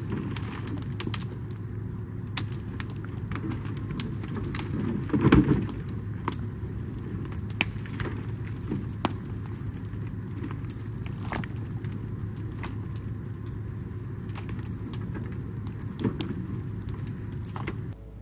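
Brush fire crackling and popping while branches are dragged off a pickup truck bed and thrown onto the burn pile, with a louder crash of brush about five seconds in. A steady low hum runs underneath.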